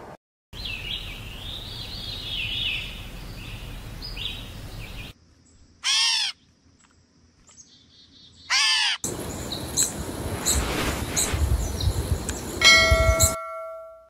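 Bald eagle's high, wavering chattering calls, then two separate loud down-slurred mewing calls of a grey catbird. Then a noisy stretch with clicks, ending in a brief ringing tone that is the loudest sound.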